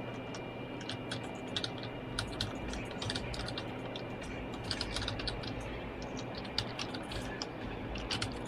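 Irregular light clicks and taps, several a second, over a faint steady hum.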